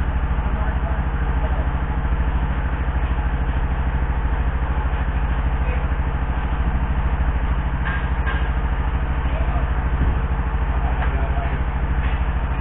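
An engine idling steadily with a fast, even low pulse, and a couple of short knocks about two-thirds of the way through.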